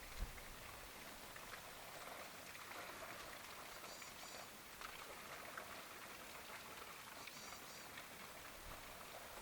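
Faint outdoor ambience: a steady, even hiss sprinkled with small ticks, like light rain, with two brief high chirps about four seconds and seven seconds in.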